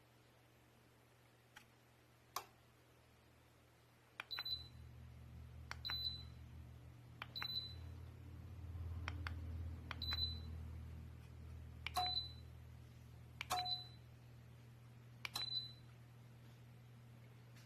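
Clicks, most followed at once by a short high electronic beep, repeating about every one and a half to two seconds, like buttons being pressed on an appliance's control panel. A low hum starts about four seconds in.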